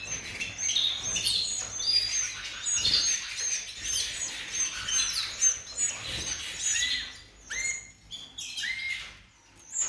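Domestic canaries chirping and calling, with many short high chirps and whistled notes overlapping, and a few lower whistled notes near the end.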